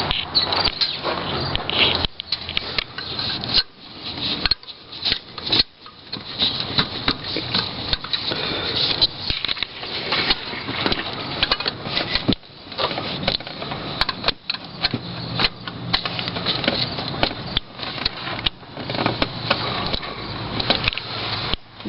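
Hand tools clinking, knocking and rattling against metal in an engine bay as a wrench is fitted onto the engine-block coolant temperature sender, with irregular handling noise throughout.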